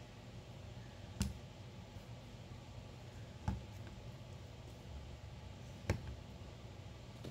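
Plastic bottles of Dawn dish soap set down one at a time on a tile floor: three sharp knocks about two seconds apart, over quiet room tone.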